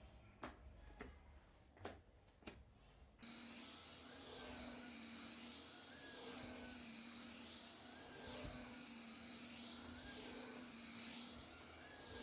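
A few light taps, then about three seconds in a vacuum cleaner starts and runs steadily with a high whine, its sound swelling and fading about once a second.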